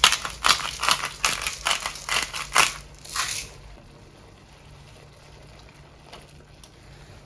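Black pepper being ground by hand from a pepper mill: a quick run of about ten crunchy grinding strokes that stops about three and a half seconds in.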